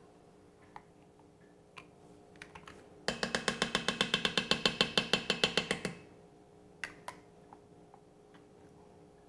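A metal measuring spoon tapped rapidly against the rim of a stainless steel pressure-cooker pot, about ten sharp clicks a second for roughly three seconds starting about three seconds in, with a few single light clicks before and after.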